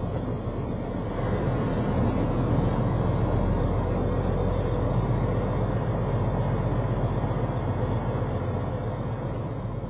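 Semi truck's engine and road noise heard from inside the cab at highway speed: a steady low drone.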